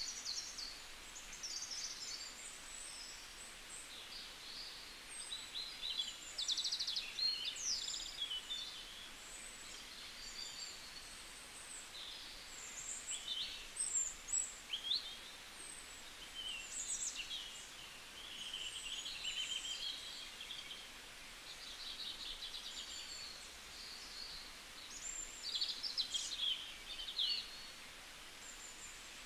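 Birds chirping and singing, many short high calls and a few quick trills throughout, over a steady low hiss.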